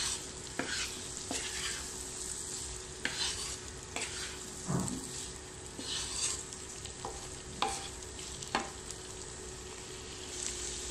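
Sliced bitter gourd and potatoes sizzling in hot oil while being stirred and sautéed with a wooden spatula, which scrapes and knocks against the pan every second or so.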